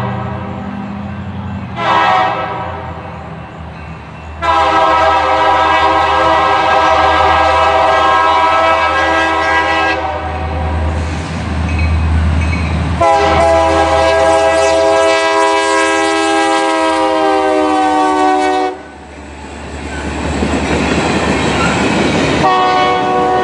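Diesel freight locomotive's horn sounding several notes at once, in repeated blasts for a grade crossing: a short blast, then two long ones of several seconds each, with the locomotive's low engine rumble underneath. Between the blasts, and after the second long one, comes the rolling noise of freight cars passing, and the horn sounds again near the end.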